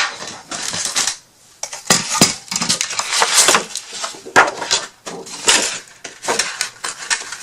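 Craft supplies being handled on a work table: irregular clattering, knocking and rustling of small hard objects and paper.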